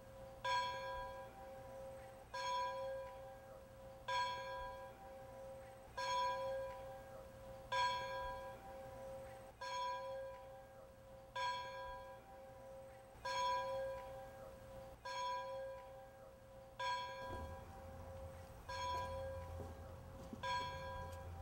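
A single large bell tolling slowly, struck about every two seconds, each stroke ringing on into the next. A low hum comes in near the end.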